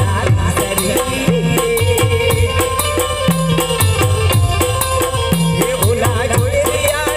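Indian folk music for dancing, with drums keeping a fast, steady beat under a sustained melody line.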